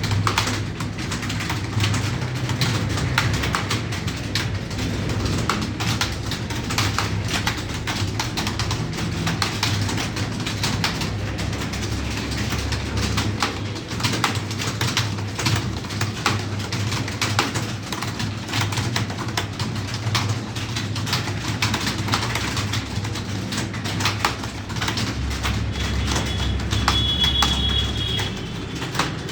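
Fast, continuous typing on a computer keyboard, the keys clicking several times a second, over a steady low hum. A brief high chirp comes near the end.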